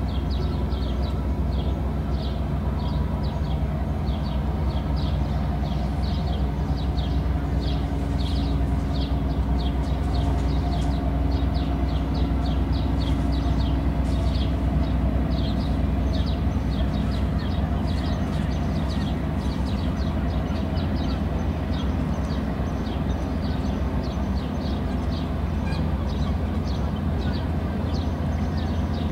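Steady low mechanical drone with a constant hum, and small birds chirping rapidly over it, a few short high chirps a second.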